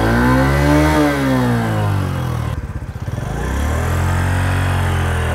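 Honda CD 70's small single-cylinder four-stroke engine revved once: the pitch rises for about a second, falls away over the next second and a half, then settles to steady, lower running.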